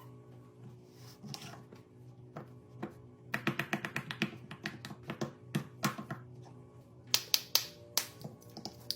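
Sharp clicks and taps from fidget toys being pressed and handled, with a quick run of about eight clicks a second around three to four seconds in and a few louder clicks near the end, over soft background music.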